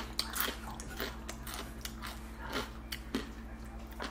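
People chewing food close to the microphone: irregular, crisp wet clicks and light crunches of chewing. A faint steady hum sits underneath.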